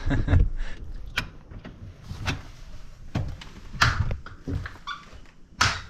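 Wooden fire-lookout cabin door being handled and footsteps going in across the floor: a string of irregular knocks and thumps, the loudest about four seconds in and near the end.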